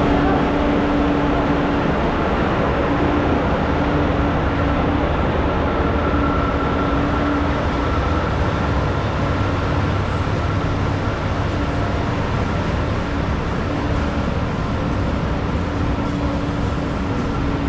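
Steady, loud city noise: a dense wash of sound with a constant low hum and a fainter, higher steady tone.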